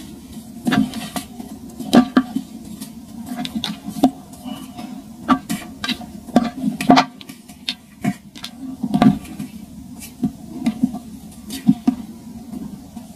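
Clumps of dried sand crushed between fingers: irregular sharp crunches, one to a few each second, with fine crumbling and grains trickling between them.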